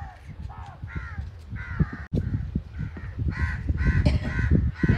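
Crows cawing in a quick series of short harsh calls, several a second. Heavy low rumbling noise joins them after about two seconds.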